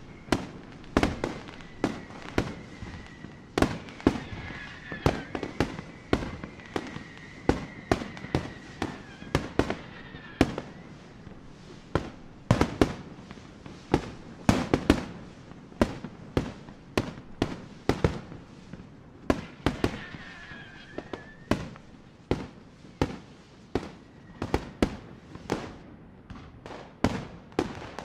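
Fireworks display: a steady, irregular run of sharp bangs from bursting shells, about two a second. A faint high whistle holds for several seconds twice, falling in pitch as it ends.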